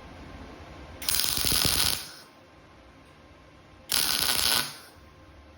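Two short crackling tack welds from an arc welder, each about a second long, about three seconds apart, fixing the foot pads to the base of a sheet-metal pedestal.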